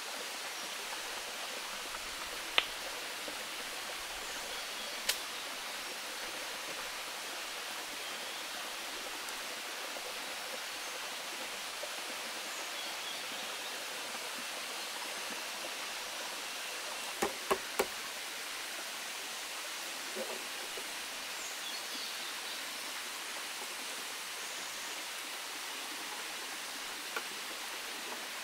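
Steady rush of flowing water from a nearby waterfall. A few sharp knocks stand out from the bamboo work, with a quick run of three about two-thirds of the way in.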